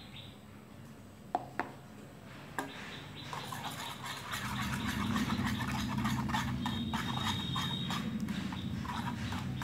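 Wire balloon whisk beating mango pulp into warm milk in a steel saucepan, its wires ticking rapidly against the pan over a wet swishing. A few light taps come first, and the whisking starts about three seconds in.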